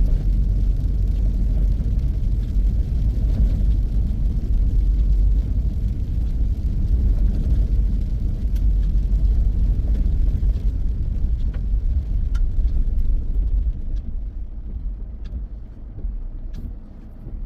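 Vehicle driving along, a steady low engine and road rumble that drops in level about three-quarters of the way through, with a few faint clicks.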